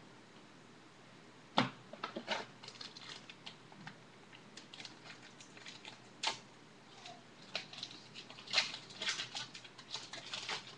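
Trading cards and packs being handled at close range: scattered sharp clicks and brief rustles, with a sharper click about a second and a half in and another about six seconds in, then a busier run of clicks and rustling near the end.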